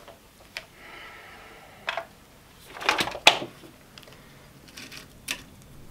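Handling noise as a rubber full-face gas mask is pulled off and put down: a few separate sharp clicks and knocks, the loudest about three seconds in.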